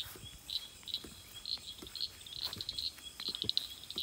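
Crickets and other night insects chirping in repeated short, high trills, with a few soft footfalls in grass.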